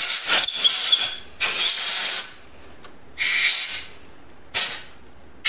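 Several short blasts of compressed air from a blow gun, each a second or less, hissing as they clear leftover parts cleaner and oil out of the blind bolt holes in a Honda CB750's upper crankcase half. The fluid is blown out so that it cannot lock up a bolt and crack the case when it is tightened.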